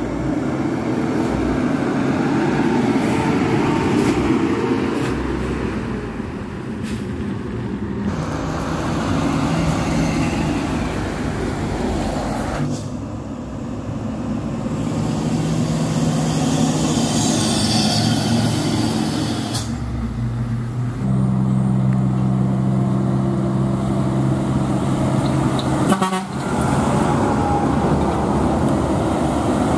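Heavy diesel dump trucks driving past with their engines running, and long, steady horn blasts sounding twice in the second half.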